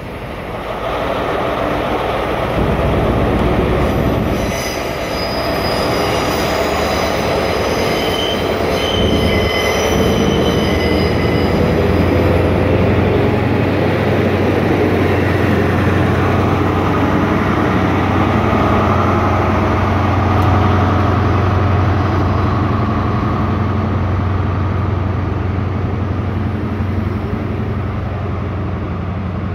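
An InterCity 125 (HST) with Class 43 power car 43272 runs slowly past, its diesel engine and wheels rumbling. High wheel squeals ring out from about four to twelve seconds in. After that a steady low diesel drone carries on as the Mark 3 coaches roll by.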